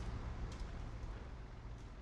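Campervan road and engine noise heard from inside the cab, a steady low rumble that gradually gets quieter as it slows, with a few light clicks.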